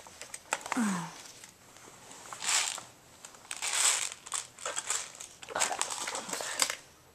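Rustling and crinkling handling noises in several short bursts, as gear such as straps or clothing is moved and adjusted.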